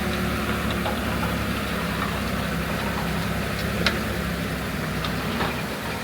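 A heavy machine's diesel engine runs steadily at low revs, with a few brief sharp clicks over it.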